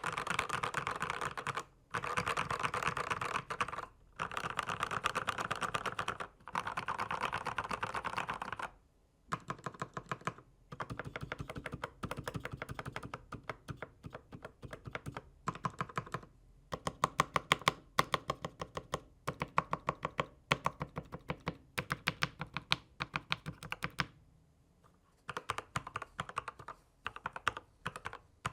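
Fast typing on a Dark Project KD87A mechanical keyboard with factory-lubed Gateron switches. The keystrokes come in rapid runs broken by short pauses, and in the second half the strokes are more separated and louder.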